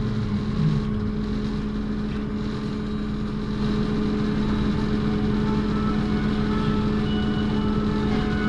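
City bus standing still with its drive running, a steady low hum and rumble heard from on board.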